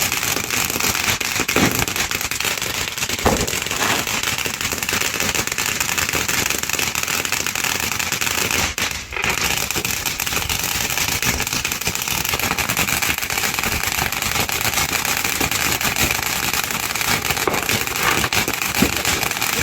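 Firework fountain crackling continuously, a dense steady spray of small pops that dips briefly about nine seconds in.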